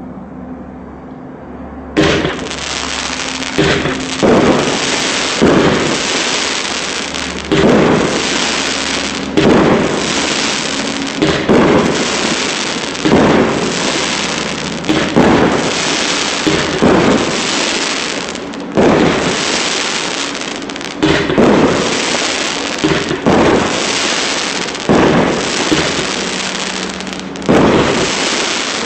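A 19-shot, 30 mm fireworks cake (repeater) starts firing about two seconds in. It goes off at about one shot every two seconds: each is a sharp launch thump followed by the rush of its sparking "fire tree" tail and a coconut-palm style break.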